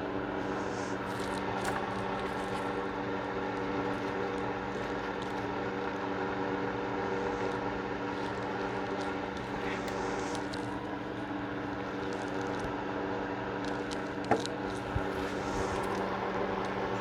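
Steady droning hum throughout, with light rubbing and small clicks from a handgun being hand-cleaned. A sharp click a little before the end.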